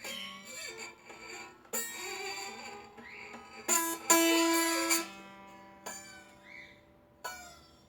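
Acoustic guitar played in separate plucked notes and short sliding pitches, the loudest a ringing chord about four seconds in, as effects meant to imitate a Formula 1 car.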